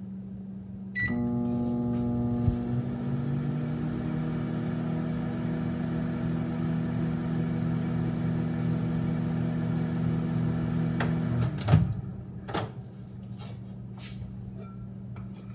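Microwave oven started with a short button beep, then running with a steady hum for about ten seconds on a 10-second reheat, stopping with a clunk followed by a couple of knocks.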